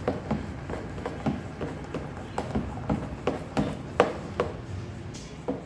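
A spoon stirring thick cornmeal pudding batter in a mixing bowl, knocking against the bowl about three times a second in an uneven rhythm.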